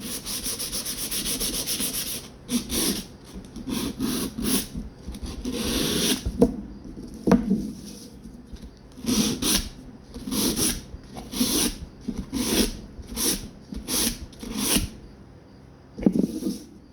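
Handle scales being hand-sanded with coarse 60-grit sandpaper: rapid short scrubbing strokes for about two seconds, then slower separate strokes, one or two a second, with a brief pause near the end. The coarse grit is cutting deep scratches into the handle material so that epoxy will key to it.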